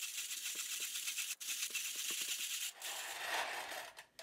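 Peter Dienes manual conical burr coffee grinder being hand-cranked through coffee beans on its finest setting, with the burrs just touching: a continuous dry, crackly rattle of beans being crushed, with brief breaks about a second and a half in and near the end.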